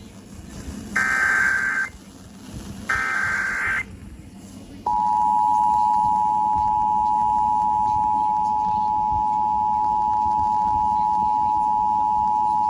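Emergency Alert System broadcast: two one-second bursts of screeching digital data from the SAME alert header, a second apart. They are followed by the steady two-tone EAS attention signal, which begins just under five seconds in and holds unbroken.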